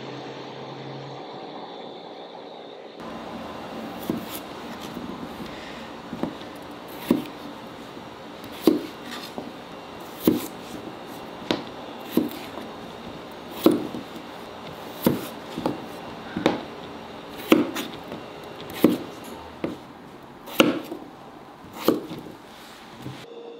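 Chef's knife cutting peeled potatoes into chunks on a cutting board: about twenty sharp knocks of the blade striking the board, roughly one a second, beginning about four seconds in.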